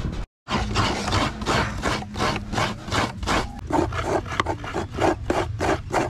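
Halved coconuts being scraped on a hand coconut grater, a steady rhythmic rasping of about three strokes a second. It cuts out briefly about a third of a second in.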